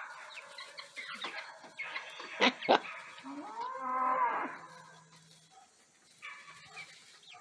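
Two sharp knocks, then a single drawn-out animal call that rises and falls in pitch, lasting a little over a second.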